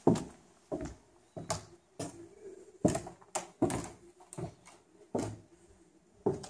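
Footsteps on a bare concrete floor in empty, unfinished rooms: a string of sharp knocks at an uneven walking pace, about a dozen steps.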